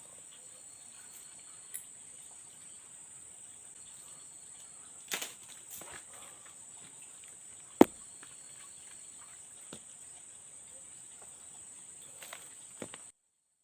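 Insects chirring in one steady high-pitched drone, broken by a few sharp clicks or knocks, the loudest about eight seconds in. The sound cuts off abruptly just before the end.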